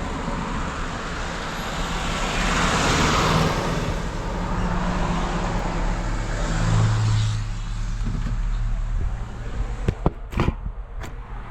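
Vehicle engine idling with a steady low hum while other vehicles pass close by, their noise swelling twice and fading; a few sharp clicks near the end.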